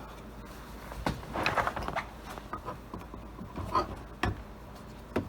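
Plastic interior trim being handled and pushed onto its clips, with scattered clicks and knocks and a short run of scraping and rustling about one and a half seconds in.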